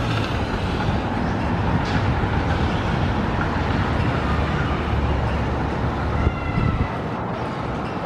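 Busy city street traffic: trams and cars passing in a steady rumble, with a brief faint high tone about six seconds in.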